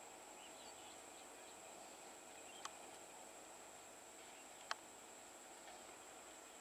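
Near silence: faint outdoor ambience with a steady thin high-pitched tone and two brief clicks, one a few seconds in and a sharper one about two seconds later.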